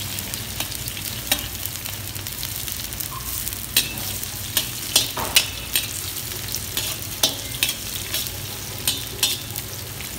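Sliced onion and garlic sizzling in hot oil in a wok while a metal skimmer stirs them, scraping and clinking against the pan many times at irregular intervals. A steady low hum runs underneath.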